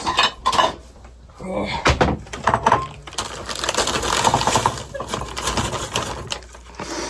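Kitchen clatter: bowls and dishes knocking together, a run of sharp clicks and knocks while someone hunts for a bowl, with some speech underneath.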